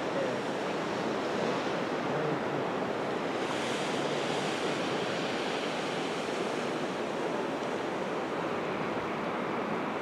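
Lake Erie waves breaking on a sandy shore: a continuous wash of surf that swells into a louder, hissier surge about three and a half seconds in.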